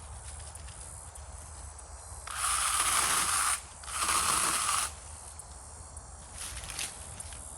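Battery-powered mini chainsaw run in two short bursts of about a second each, a brief pause between them, cutting into a downed tree.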